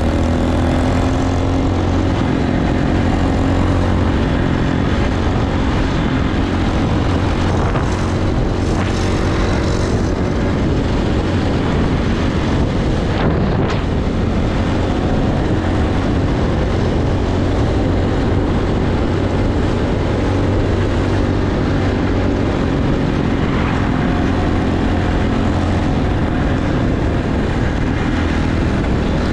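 Dirt bike engine running steadily while riding down the road.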